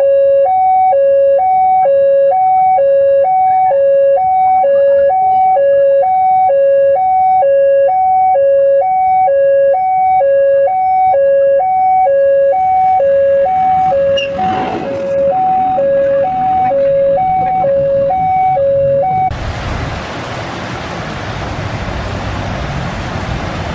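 A loud two-tone alarm alternating between a high and a low note about once a second, fading under rising noise. About four seconds before the end it cuts off abruptly and heavy rain hisses steadily.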